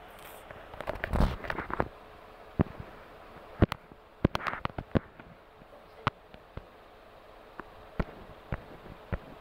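Irregular sharp clicks and light knocks over a low background hiss. There is a brief rustling clatter about a second in, a second cluster around four and a half seconds, and single clicks in between.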